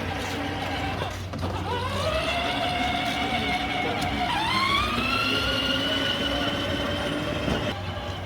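Small electric motor of a toy RC car whining at high speed. It spins up about a second in, holds a steady pitch, then dips and spins up again about four seconds in before cutting off near the end.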